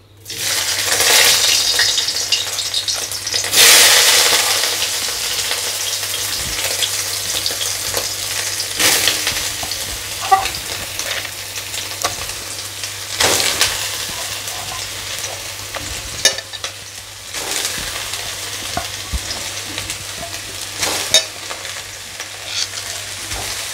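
Boiled, squeezed soya chunks sizzling as they fry in a little hot oil in a kadai. The sizzle is loudest in the first few seconds as they hit the oil, then settles to a steady hiss that swells each time they are stirred.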